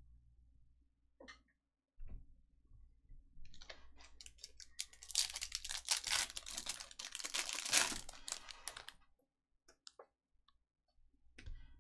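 A Topps Chrome trading-card pack's foil wrapper being torn open by hand, a crackling, crinkling rip lasting several seconds. A few small clicks and taps come before and after it.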